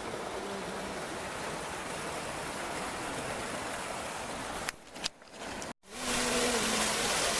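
Steady rush of flowing water. It drops out briefly about five seconds in and comes back louder.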